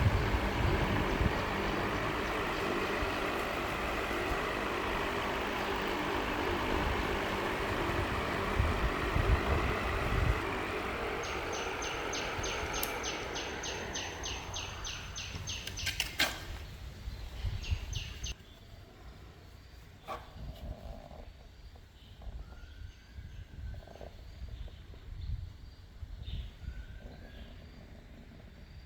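A small electric motor running with a steady whirring hum, its pitch sliding down as it slows, with a run of evenly spaced clicks; it stops after a loud click, leaving only scattered small knocks and handling sounds.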